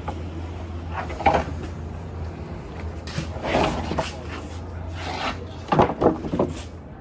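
Several scattered wooden knocks and clatters, as of roof timbers being handled, the loudest a quick pair near the end, over a steady low rumble.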